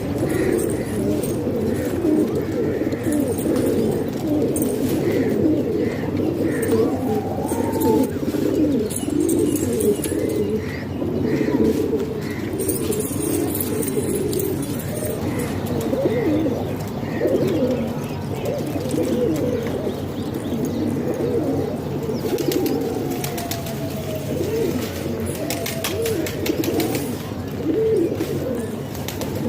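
A flock of domestic pigeons cooing continuously, many overlapping coos at once, with short higher chirps scattered through the first half.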